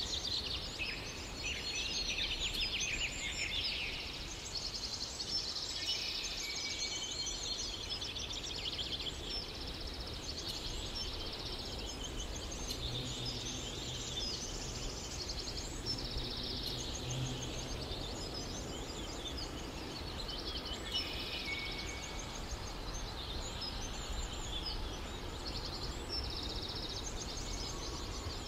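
Small birds chirping and trilling without a break, many short repeated calls overlapping, over a low steady hum.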